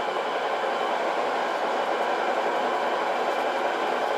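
Metal lathe running in low (back) gear on a thread-cutting pass: a steady, even mechanical whirr with gear whine from the headstock and feed gearing.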